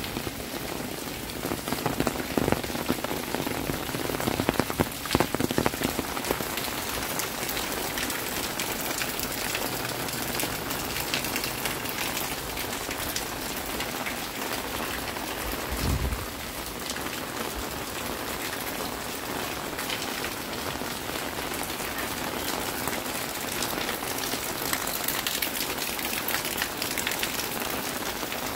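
Steady rain falling on hard surfaces, a dense run of small drop ticks over an even hiss. There are a few louder knocks in the first seconds and one short low thump about halfway through.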